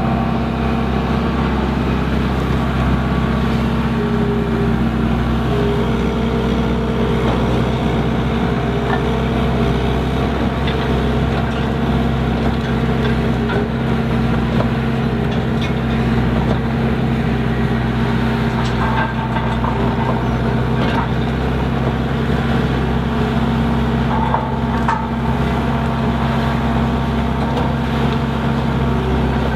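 Skid steer engine running steadily under load, with a few faint clicks and knocks now and then.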